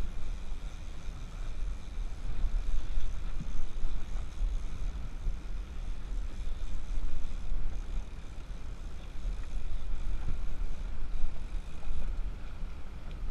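Twin outboard motors running with the boat under way, their steady whine over the slap of water, with wind buffeting the microphone in uneven gusts.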